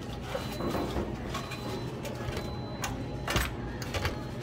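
Sharp clicks and knocks of hands handling things inside a claw machine's open cash compartment, the loudest about three and a half seconds in, over the machine's steady electrical hum.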